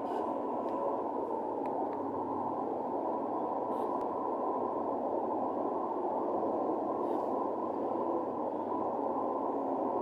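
Diesel engine of a Zhongtong LCK6125G bus with a Cummins engine, running steadily; the exhaust gives a dull, muffled and even sound.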